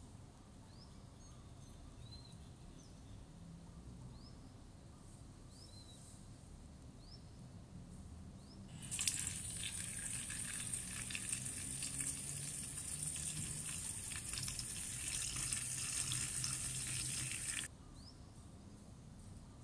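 Kitchen tap running into a stainless steel bowl of dried butterfly pea flowers in a sink, a steady splashing hiss that starts about halfway through and cuts off sharply near the end. Before it there is only a faint background with a few small high chirps.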